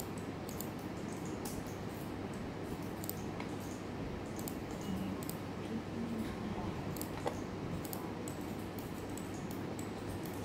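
Scattered light clicks from computer mice and keyboards, several a second at irregular intervals, over a steady low room hum.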